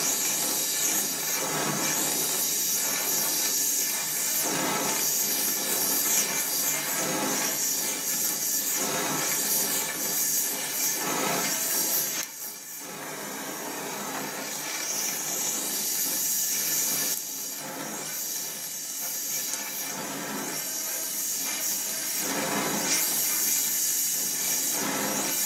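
Donmet 132A micro gas-welding torch flame hissing steadily while steel filler wire is fed into a weld on a steel pipe, with soft swells about once a second. The hiss drops suddenly about halfway through and builds back up.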